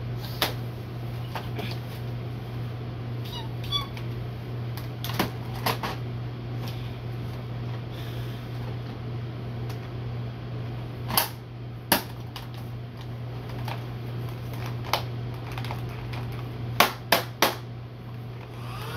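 Scattered sharp plastic clicks and clacks from a Nerf Rival blaster being handled and loaded, about ten in all, with two louder ones near the middle and a quick run of three near the end. A steady low hum from a running ceiling fan lies underneath.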